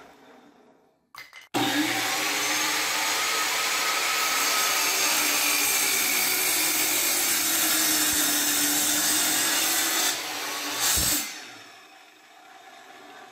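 Electric miter saw running and cutting through a pine 2x4 at a 45-degree angle, a steady loud whine of motor and blade in wood. It comes in sharply about a second and a half in and runs for about eight seconds. It then drops, flares once more and dies away about eleven seconds in.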